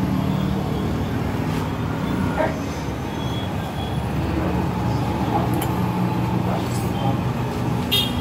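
Steady low hum of a nearby motor vehicle engine running, with a few light metallic clicks from handling the brake drum's wheel bearing parts. The sharpest click comes near the end.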